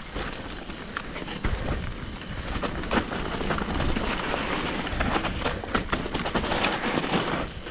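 Mountain bike riding down a dirt trail: steady tyre noise over dirt and stones, with frequent rattles and knocks from the bike over the bumps.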